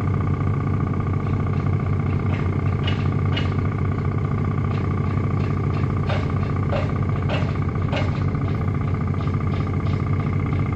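Boat engine running steadily, with a constant high whine over its drone and a few sharp knocks in the middle.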